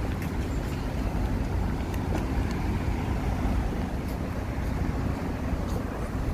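City street ambience: steady traffic noise with a low, fluttering rumble of wind on the phone's microphone, and a few faint ticks.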